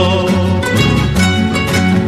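Instrumental passage of a Peruvian trio song: a plucked-string melody over stepping bass notes.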